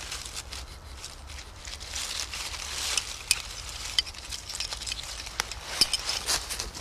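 Dry fallen leaves rustling and crackling as gloved hands rummage through the leaf litter, in irregular small crackles with a few sharper snaps.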